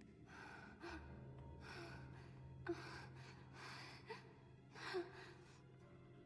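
A woman breathing in heavy, gasping breaths, about five of them, over a low steady hum that comes in about a second in.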